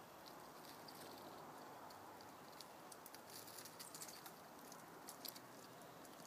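Faint scratching and clicking of a cat's claws on tree bark as it climbs down the trunk head-first, a cluster of sharp ticks from about halfway through, over a faint steady outdoor hiss.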